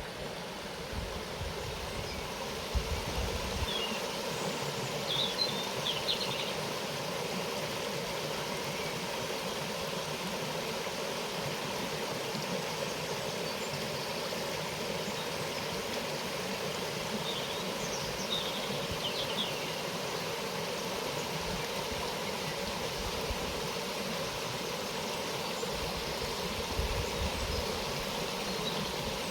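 Steady outdoor rushing noise, with two brief clusters of short high chirps, about five seconds in and again near the middle.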